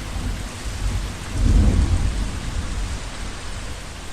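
Steady heavy rain hissing, with a low rumble about a second and a half in.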